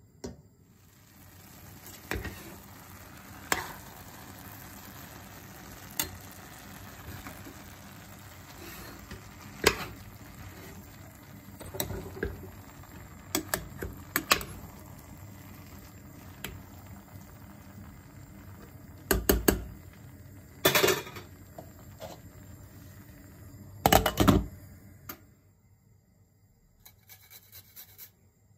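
Kitchen cooking sounds: a steady hiss with a utensil stirring in a pot and knocking sharply against it a dozen times, loudest in a cluster of knocks past the middle. Near the end, a fast run of short scraping strokes as garlic is rubbed on a metal hand grater.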